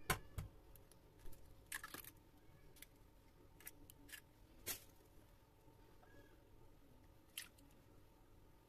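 An egg being cracked into a plastic jug and its shell pulled apart: a few faint, separate clicks and light cracks spread over several seconds, with a small cluster of them just under two seconds in.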